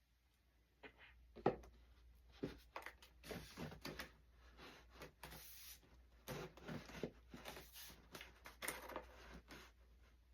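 Faint, irregular clicks, scrapes and rubbing as foam and plastic model-airplane parts are handled and pushed together in a test fit.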